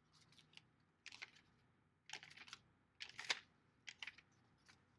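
Pages of a paperback Emergency Response Guidebook being flipped by hand: a series of short paper flicks and rustles, the loudest a little past three seconds in.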